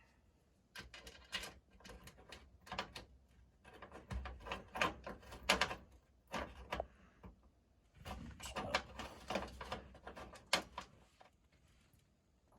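Irregular clicks, taps and light rattles of small parts being handled and fitted at a car dashboard, with a few duller knocks.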